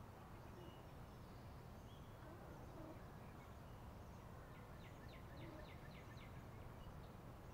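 Quiet outdoor ambience with a low steady background noise and faint, scattered bird chirps. About five seconds in, a bird sings a quick run of about seven short down-slurred notes.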